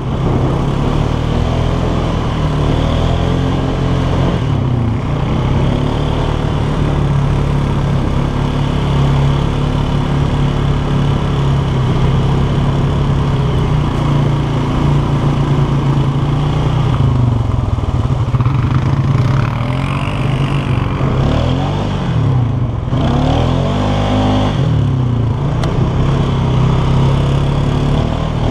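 ATV engine running under way, its pitch rising and falling several times past the middle as the throttle changes.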